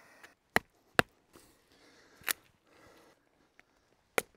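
Batoning: a wooden baton striking the spine of a large stainless-steel knife driven into a small log to split it. Four sharp knocks, two close together in the first second, one a little past two seconds and one near the end.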